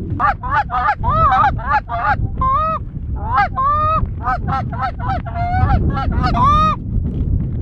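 A fast, loud run of Canada goose honks and clucks, calls rising and falling in pitch one after another, stopping a little before the end. Low wind rumble on the microphone runs underneath.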